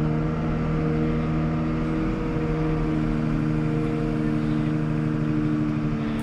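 Komatsu WA320 wheel loader's diesel engine running at steady raised revs, holding one even pitch, while the lift arms raise a load of steel trench plates on the forks. Heard from inside the cab.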